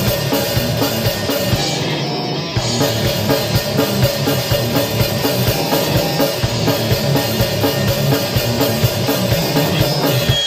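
Grindcore (mincegore) recording playing: distorted guitar and bass over rapid drum kit hits, with no vocals heard.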